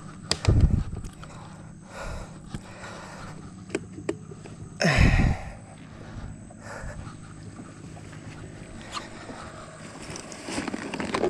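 Thumps and knocks on the fiberglass deck of a small skiff while a freshly caught snapper is handled: a loud thump about half a second in and a louder one around five seconds, with a faint steady low hum underneath.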